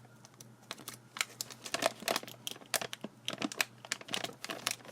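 Potato chip bag crinkling and crackling in irregular little bursts as it is handled and cut open.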